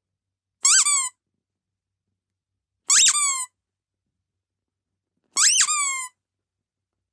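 A squeaky dog toy squeezed three times, a little over two seconds apart; each squeak is a short whistle that rises and then falls in pitch.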